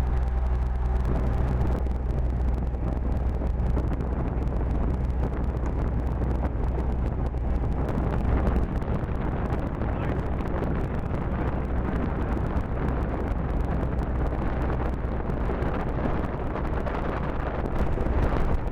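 Gemini catamaran's engine running steadily under way, a constant low hum, with a steady rush of wind over it.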